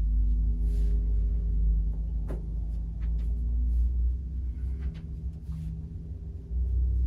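A machine's steady low electric-motor hum, even-pitched, dipping a little about four seconds in and swelling again near the end, with a few faint clicks.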